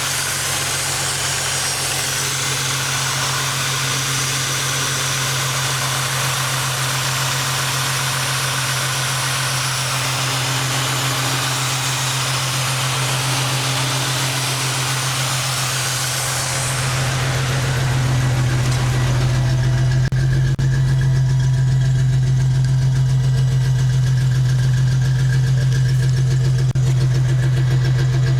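A 1994 Ford Mustang's 3.8-litre V6 idling steadily with a misfire, which the owner traced to a vacuum leak and poor aftermarket ignition coil, wires and plugs. About two-thirds of the way through, a high hiss over the engine fades and the engine sound becomes louder and deeper.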